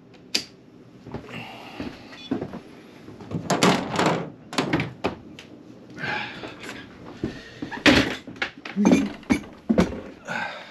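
Irregular knocks, clunks and rattles of a large tinted acrylic panel and other gear being handled in a boat's cabin, with a sharp click near the start as switches on the breaker panel are flipped.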